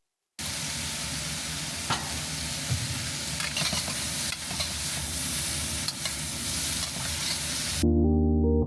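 Food sizzling in a hot pan: a steady sizzle with a few sharp crackles and pops. It cuts off suddenly near the end as music comes in.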